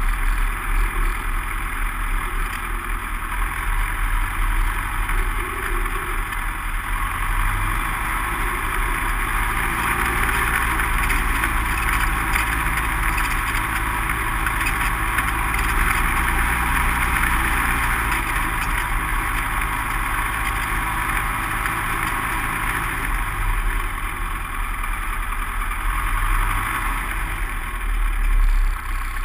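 A light aircraft's single piston engine and propeller running steadily, heard inside the cabin as the plane moves along a grass airstrip.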